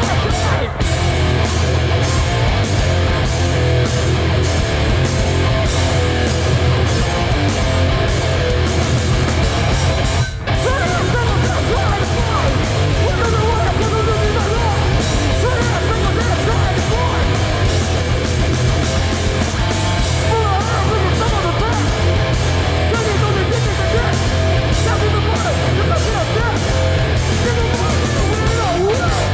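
Hardcore punk band playing live and loud: distorted electric guitars, bass and drums. The whole band stops for a moment about ten seconds in, then crashes back in.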